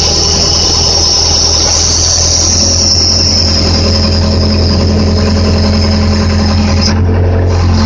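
Case 580D backhoe's diesel engine running steadily under load while digging, with a high whine over it that slowly drops in pitch and cuts out briefly near the end.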